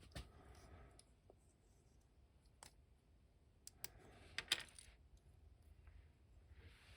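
Near silence broken by a few faint clicks and taps of small plastic action-figure parts being handled as the T-hook is fitted back on, the loudest a short cluster about four and a half seconds in.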